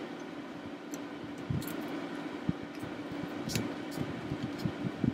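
Light clicks and taps of plastic calculator parts being pressed and handled by fingers, scattered irregularly, a few sharper ones among them, over a steady low hum.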